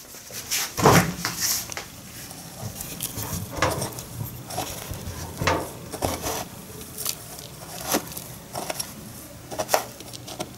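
A small metal spoon scraping and digging through a dry, crumbly ground hazelnut-and-apple mixture in a plastic bowl, with scattered clicks against the bowl and a louder knock about a second in.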